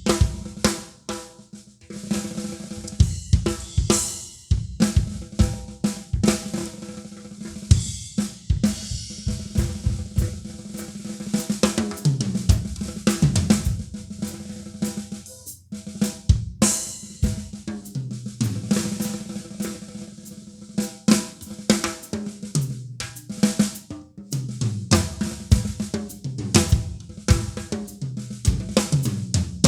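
Acoustic drum kit played as a groove on snare, bass drum and hi-hat, with cymbal crashes. Twice, once about halfway and again later, a fill runs down the toms from high to low.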